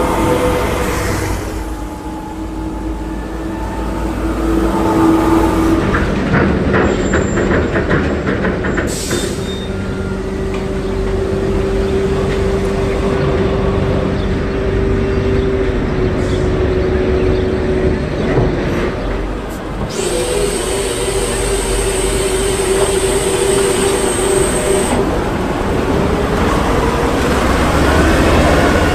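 Heavy military amphibious bridging vehicle's engine running under load, with a steady whine from the drivetrain. The sound changes abruptly several times.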